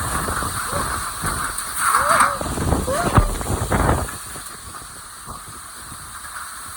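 Hurricane wind gusting hard across the microphone with heavy rumbling buffeting. About four seconds in it eases to a steadier rushing hiss.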